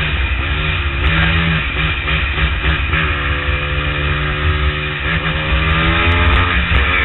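Motorcycle engine running at freeway speed under heavy wind rush on the microphone, its pitch wavering and then holding steady for a couple of seconds in the middle.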